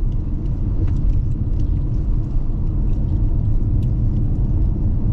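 Steady low road and engine rumble inside the cabin of a moving car, with a few faint ticks.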